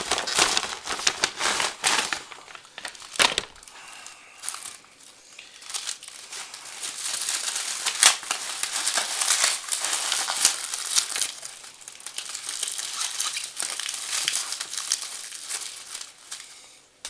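Paper packing wrap being crumpled and pulled apart by hand, an irregular run of crinkling and rustling with sharp crackles.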